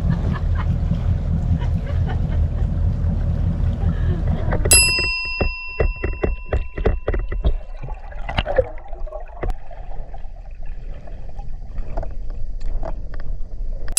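Low, steady rumble aboard a boat on the water, cut off about a third of the way in by a single bright bell-like ding that rings for about a second. Then comes quieter underwater sound with scattered short clicks and crackles, and a second ding right at the end.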